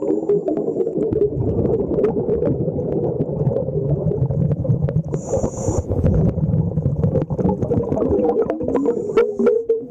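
Scuba diver's exhaled bubbles rumbling and gurgling past an underwater camera, with many small clicks and a short regulator hiss about five seconds in.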